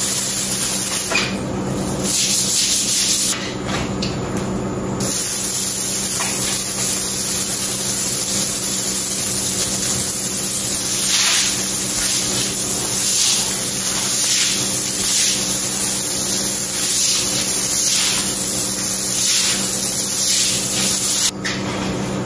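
Garden-hose spray nozzle jetting water onto a concrete floor: a steady, loud hiss of spray. It weakens briefly a few seconds in and drops off sharply shortly before the end.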